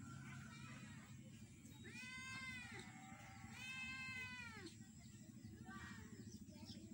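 Kitten meowing twice: two drawn-out calls of nearly a second each, each rising then falling in pitch, about a second and a half apart.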